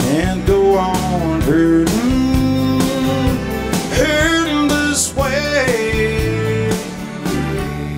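Live country ballad: a male lead voice sings long, gliding held notes over a band with acoustic guitar. It eases off slightly near the end.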